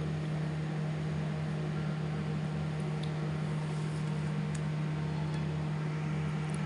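Steady mechanical hum with an even hiss underneath, like a running fan motor, holding level throughout with a few faint ticks.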